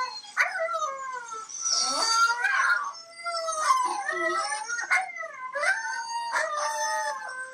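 Husky howling and yowling at a talking hamster toy in a string of wavering, rising and falling calls that overlap one another, with the toy repeating the sounds back in a higher pitch.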